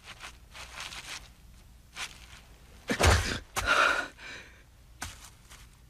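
Sound effects of short scuffs and breathy rustles, like footsteps on grass and heavy breathing, with a heavy thud about three seconds in.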